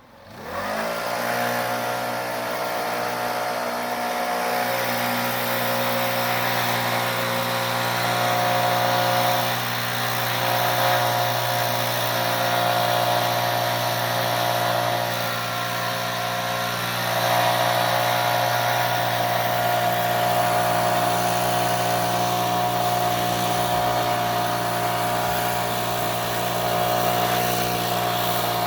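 An engine spinning up in the first second, its pitch rising quickly, then running steadily at one speed with small swells in loudness.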